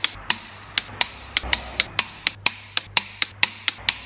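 Ratchet of a torque wrench clicking while main bearing cap bolts are tightened, sharp metallic clicks about four a second, unevenly spaced.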